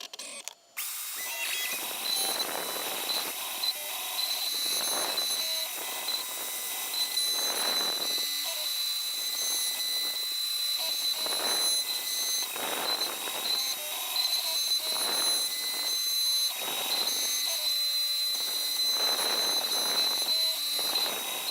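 MillRight CNC M3 desktop router cutting hardwood: the 400 W spindle runs with a steady high whine and hiss, coming in under a second in. The cutting noise swells and fades every second or two as the bit moves through the wood, with the stepper motors' hum changing pitch underneath.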